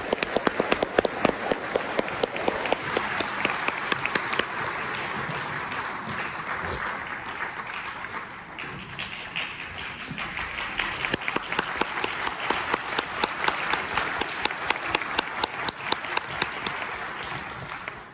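Audience applauding, with one set of sharp, close claps standing out in an even beat of about four a second through the second half.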